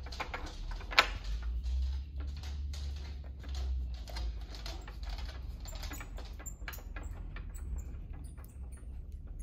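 Small clicks and scrapes of the chair frame's bolts and clamping blocks being worked and turned by hand, with one sharp click about a second in. A low steady hum runs underneath.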